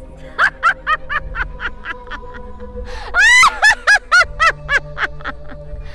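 A woman's exaggerated villain cackle: a long, quick run of 'ha-ha-ha' bursts, with the loudest, highest shriek of laughter about three seconds in. Background music plays under it.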